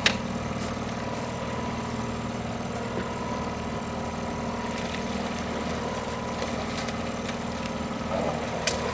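Boat's outboard motor running steadily at slow trolling speed, a constant low hum. A few brief clicks sound at the start and near the end.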